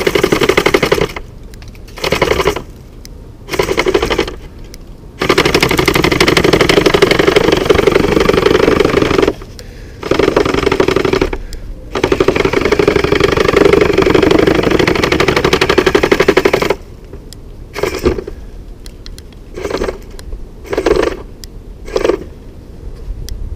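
iRobot Looj 330 gutter-cleaning robot running in a gutter, its motor and spinning auger making a fast mechanical rattle. It starts and stops in short bursts, runs for two long spells of several seconds, then goes back to short bursts near the end.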